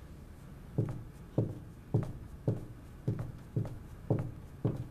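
Footsteps of people walking, a steady series of sharp steps about two a second, beginning about a second in.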